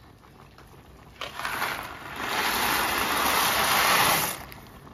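Dry elbow macaroni poured from a cardboard box into a pot of boiling water: a short rattle about a second in, then a loud, steady rattling pour that stops suddenly near the end.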